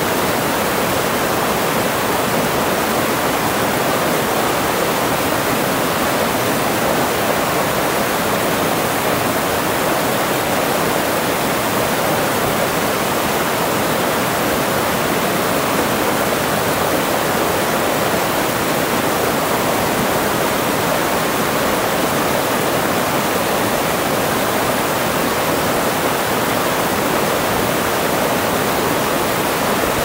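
Small waterfall: stream water cascading over low rock ledges into pools, a steady rushing of white water.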